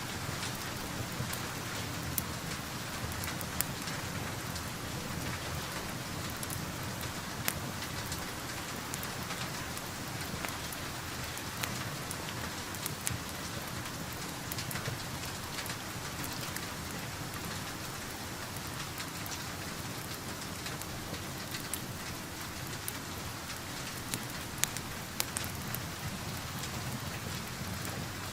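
Steady rain with a crackling fireplace: an even hiss of rain with scattered sharp pops from the fire.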